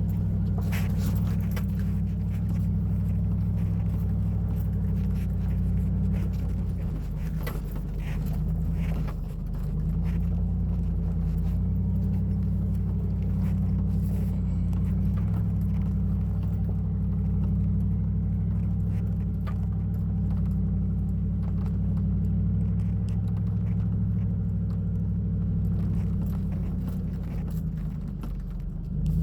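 Vehicle engine running steadily while driving an off-road trail. The engine note eases off briefly twice, about seven to nine seconds in and near the end, with scattered light clicks and knocks over it.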